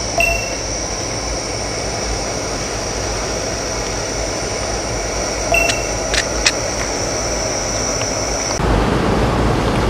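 Steady rushing background noise, with a few sharp clinks of a metal ladle against a steel stockpot and bowls about halfway through. The rush turns louder and deeper near the end.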